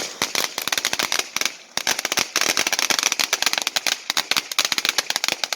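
Novelty "Martian Man" firework crackling: a dense, rapid run of sharp pops with a brief lull about a second and a half in.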